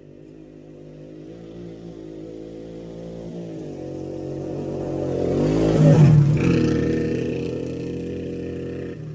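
Motorcycle engine passing by: it grows steadily louder as it approaches, goes by closest about six seconds in with a drop in pitch, then fades as it moves away.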